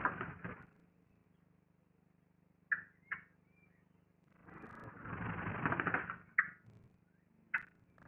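Rustling of dry grass and moss as a female Eurasian blackbird works nesting material into her nest, coming in three bursts: at the start, in the middle and at the end. A few short, sharp clicks or chirps fall in the pauses between.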